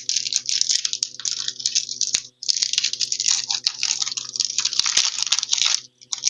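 Foil wrapper of a Pokémon TCG booster pack crinkling as it is handled and opened, in long bursts of crackle with sharp clicks and a brief pause about two seconds in.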